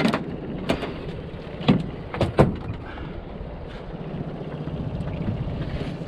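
A few sharp knocks and thumps on an aluminium boat's hull and deck, clustered around two seconds in, over a steady low rumble.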